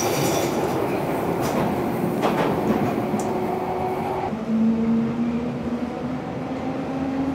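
London Underground train pulling out of the station: a steady rumble from the carriage with a few clicks, and from about four seconds in a motor whine that rises slightly as the train picks up speed.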